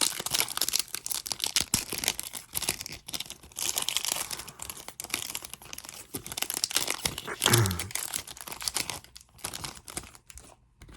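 Trading-card pack wrappers being torn open and crinkled: a dense run of crackling and rustling. About two-thirds of the way through there is a brief low sound dropping in pitch. The crinkling thins out near the end.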